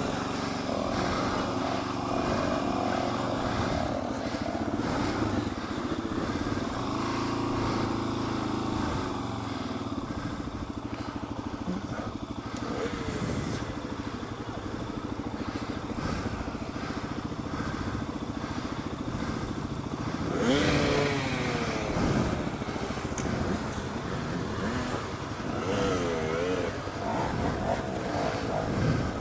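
Dual-sport motorcycle engine running at low speed with the revs rising and falling, revved up sharply about twenty seconds in.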